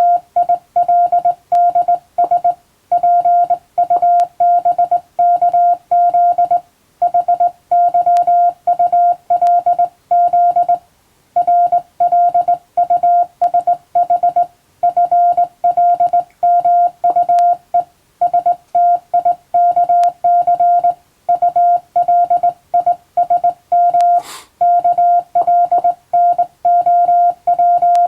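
Morse code sent as a steady tone of about 700 Hz, keyed on and off into dots and dashes with short pauses between characters and words. One brief faint crackle near the end.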